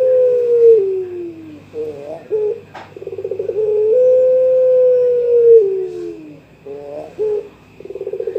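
Young puter pelung (Barbary dove) cooing a call to a rival. Twice, a quick stuttering run of notes swells into one long held coo that sags in pitch at the end, followed each time by a few short broken notes.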